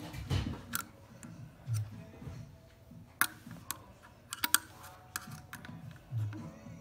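Metal paint-can opener prying up the lid of a paint can, worked around the rim. It gives a string of sharp metallic clicks and pops, irregularly spaced, as the lid lifts at each point.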